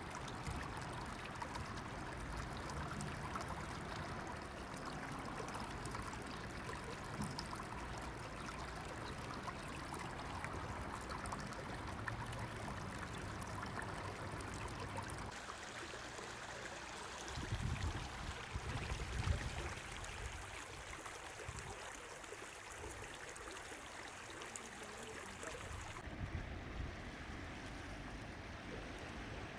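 Shallow stream running over rocks: a steady, even rush and trickle of water. It thins out near the end.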